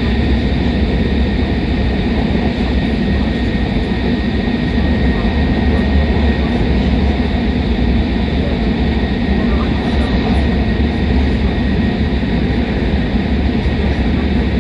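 Steady cabin noise inside a Tohoku Shinkansen train running at high speed: a constant low rumble of wheels on rail and rushing air, with a faint, steady high whine.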